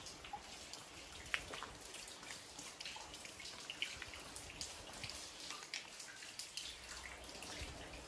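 Rain dripping and pattering off a concrete floor slab: scattered, irregular drops ticking over a faint steady hiss of rain.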